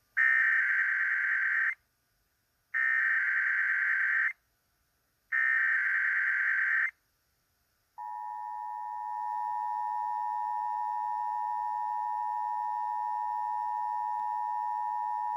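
Emergency Alert System tones on FM radio: three short bursts of SAME digital header data, each about a second and a half long with a pause between, then the steady two-tone EAS attention signal, which begins about a second after the last burst and holds. Together they open a Required Monthly Test.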